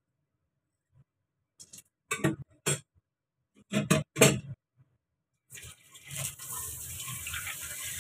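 A few sharp knocks and clatters of things being handled on a kitchen counter. Then, from a little past halfway, a kitchen tap runs in a steady rush.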